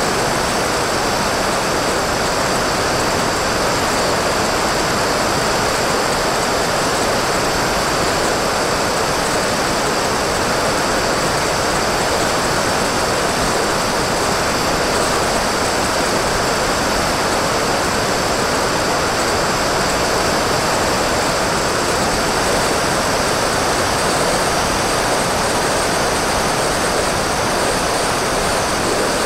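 Steady rush of propeller and airflow noise heard from a camera mounted on a radio-controlled model glider in flight, with a faint high, steady motor whine over it.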